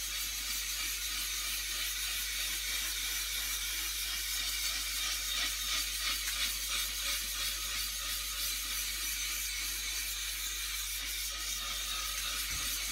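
Homemade sharpening block of valve-lapping powder set in epoxy, rubbed back and forth on a glass plate with wet silicon carbide grit. It makes a steady gritty scraping hiss as its face is lapped flat.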